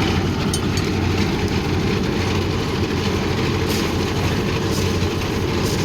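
Concrete mixer machine's engine running steadily with a loud low hum, with three brief clatters about a second apart in the second half.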